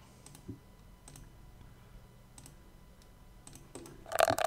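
Computer mouse clicking: a few faint, sharp clicks spaced out over several seconds, then a short, louder burst of sound near the end.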